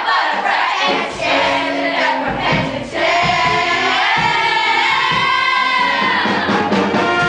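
Middle-school stage cast singing together as a chorus in a musical number, the voices running into long held notes over the second half.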